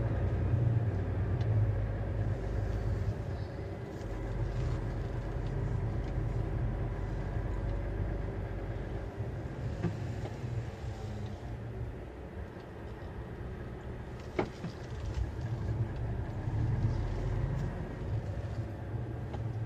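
A truck's diesel engine running at low speed while it manoeuvres to park, a steady low rumble that swells and eases, with a single sharp click about fourteen seconds in.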